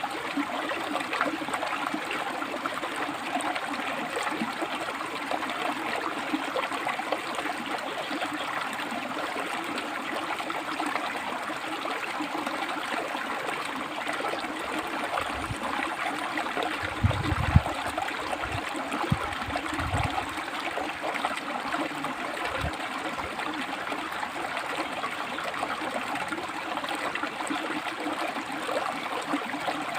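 River water flowing over and between rocks, a steady rushing, splashing flow. A few short low thuds come about halfway through.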